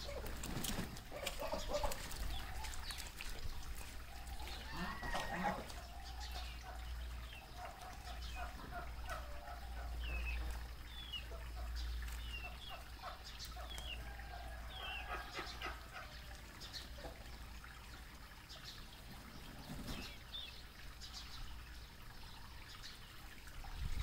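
White domestic ducks calling with short, low quacks and clucking murmurs, on and off, thinning out in the last few seconds. Short high chirps come in between them around the middle.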